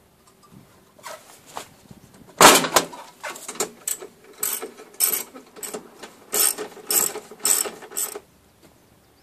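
Mechanical clicking in short repeated strokes, about two a second, with the loudest stroke about two and a half seconds in: a hand tool being worked on the van.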